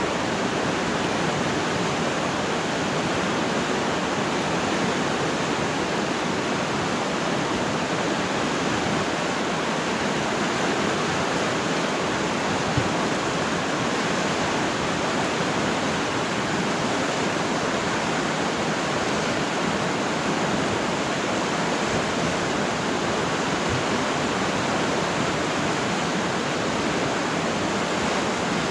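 River water rushing: a steady, even wash of flowing water.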